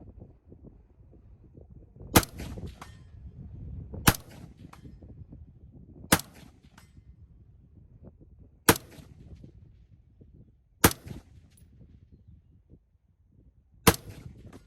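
Six rifle shots, one every two to three seconds, each sharp crack followed by a brief fainter tail.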